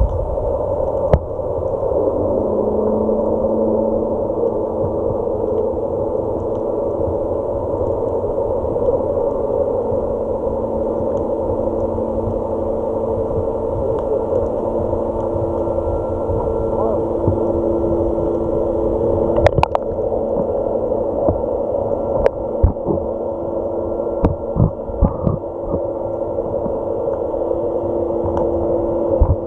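Underwater sound picked up by an action camera in its waterproof housing: a steady muffled rumble with several humming tones that set in about two seconds in. A few sharp clicks come in the second half.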